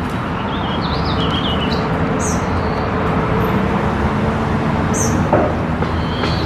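Songbirds chirping: a run of quick warbling notes in the first two seconds, then short high chirps twice more, over a steady low hum.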